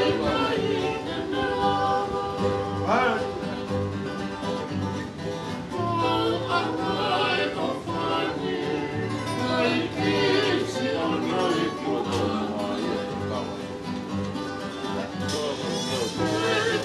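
Men singing together to strummed acoustic guitars and a ukulele, a Tongan kava-club (kalapu) song.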